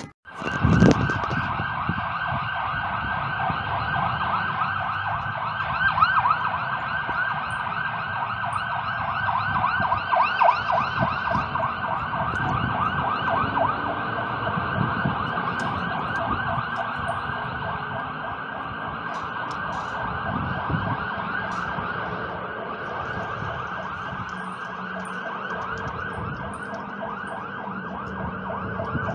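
Fire engine siren sounding continuously with a fast, repeating warble, cutting in abruptly at the start, with the truck's engine rumbling underneath.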